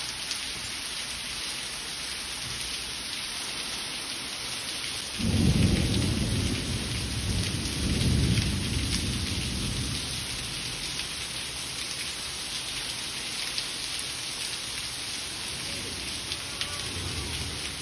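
Heavy rain falling steadily on paving. About five seconds in, a low rumble of thunder starts suddenly, swells again a few seconds later and fades out.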